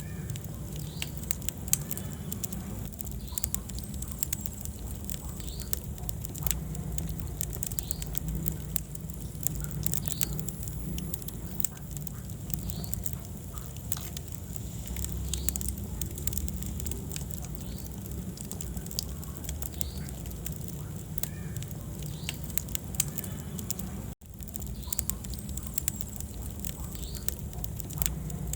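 Wood fire burning in a fireplace: dense, irregular crackling and popping over a steady low rumble of flames. The sound cuts out for a split second about three-quarters of the way through.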